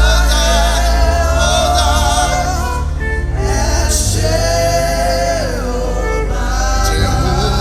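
Gospel worship singing with a band: voices sing held, gliding melody lines over a steady low keyboard and bass accompaniment.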